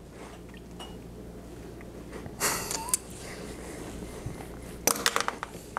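A person sniffing whiskey in a glass to nose it: one sharp sniff about two and a half seconds in and another short burst near the end.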